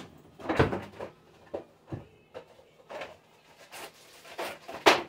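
Chicken pieces being shaken in a plastic bag of seasoned flour: irregular rustles and thuds, the loudest about half a second in and near the end.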